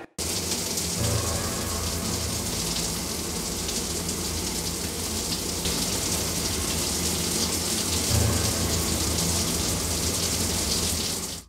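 Shower running: a steady spray of water that cuts in just after the start and cuts off suddenly near the end.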